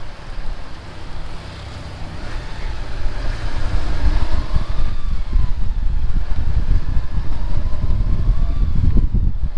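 Jeepney's diesel engine and road noise, a heavy low rumble that eases off about a second in and then builds again as the vehicle picks up speed. A fainter whine rises and falls in pitch over it.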